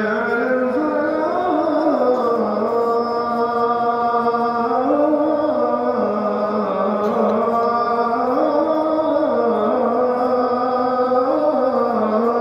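A muezzin calling the adhan (Islamic call to prayer) over mosque loudspeakers: one long, drawn-out melodic phrase with slow rises and falls in pitch.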